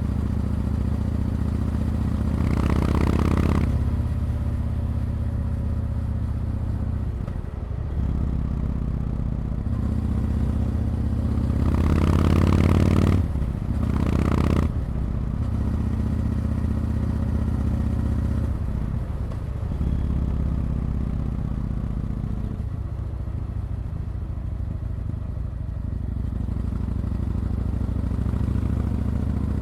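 Yamaha MT-01's big air-cooled V-twin engine running on the road. It pulls harder and louder twice, about three seconds in and again around twelve to fifteen seconds, and dips briefly in between.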